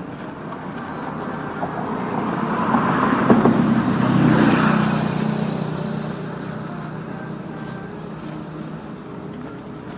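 A motor engine passing by, growing louder to a peak about four seconds in and then fading away.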